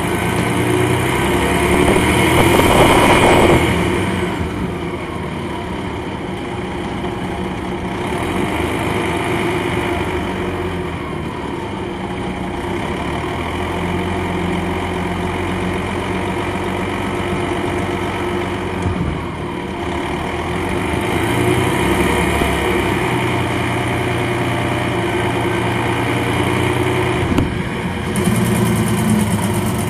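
Detroit Diesel Series 60 inline-six diesel of an MCI D4000 coach, heard from on board as it drives: the engine pitch rises and falls several times. A louder rushing burst comes about two to four seconds in.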